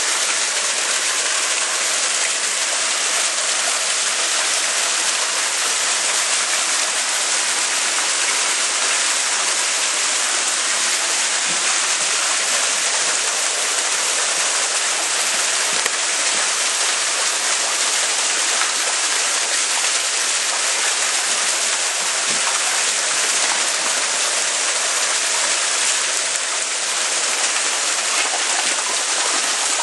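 Steady rushing and splashing of churned water at the surface of a koi pond, an even hiss with no single splashes standing out.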